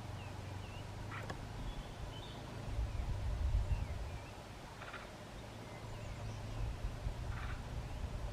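Faint, short chirps and calls of small songbirds, heard several times over a low outdoor rumble that swells about three seconds in.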